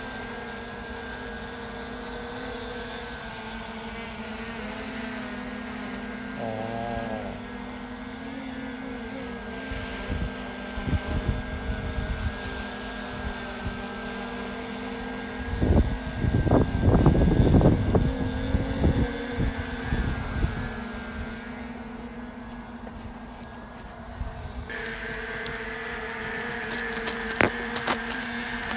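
Parrot ANAFI AI quadcopter flying low, its propellers giving a steady whine of several held tones. About halfway through, wind buffets the microphone for a few seconds, and a few sharp clicks come near the end.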